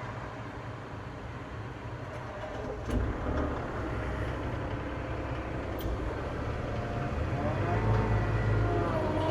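Doosan DX35Z-7 mini excavator's diesel engine running steadily, with a single knock about three seconds in. After the knock it grows louder, and louder again near the end as the machine is worked.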